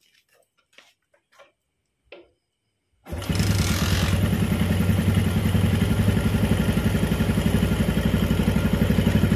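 Yamaha Jupiter MX's 135 cc single-cylinder four-stroke engine starting about three seconds in after a few faint clicks, then settling into a steady, evenly pulsing idle. The engine is freshly rebuilt with a new cylinder block set, timing chain, conrod and crank bearings.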